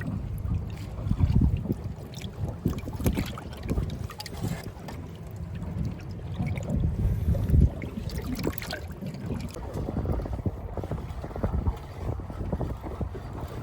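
Wind rumbling on the microphone aboard a small boat, with a few sharp knocks.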